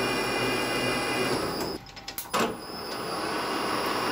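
Metal lathe running under power with a steady whir and a faint high whine, taking a light scratch pass to check an 11 TPI thread setting. Just under two seconds in the noise drops for a moment, then a sharp click, and the lathe runs on.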